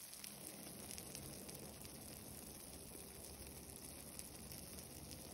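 Faint steady background hiss with a low hum: room tone, with no distinct sound.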